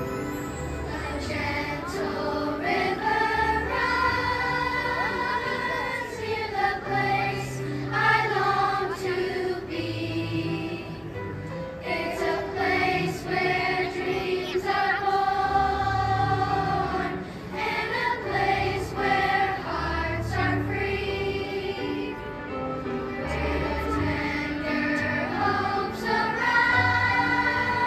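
Children's choir singing over an instrumental accompaniment with a bass line.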